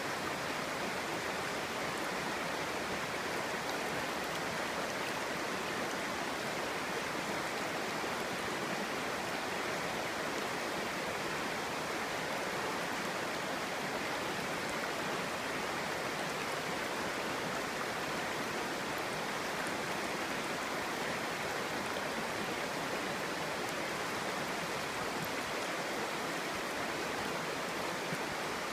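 Clear stream flowing and babbling over stones, a steady even rush of water.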